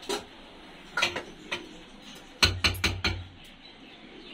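Serving spoon knocking against metal dishes as food is served: a few scattered clinks, then a quick run of four heavier knocks with a dull thud about two and a half seconds in.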